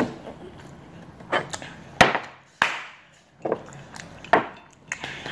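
Several sudden knocks, about five, with the two loudest close together near the middle.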